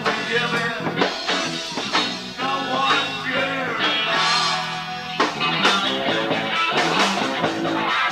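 Live rock band playing: electric guitar over bass and drums, with a steady beat.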